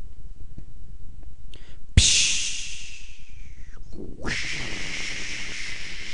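Mouth-made hissing sound effects. A sudden sharp "pshh" comes about two seconds in and fades over a second and a half, then a long steady "shhh" hiss starts about four seconds in.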